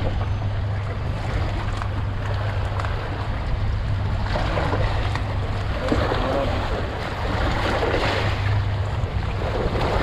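Fishing boat at sea: a steady low engine hum under wind on the microphone and water splashing against the hull.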